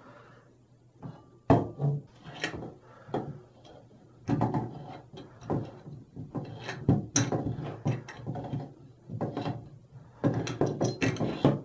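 Irregular knocks, clicks and scrapes as a stainless steel diverter tub spout is handled and turned onto its threaded pipe fitting at a tiled wall. The sounds start about a second and a half in and come in clusters with short gaps.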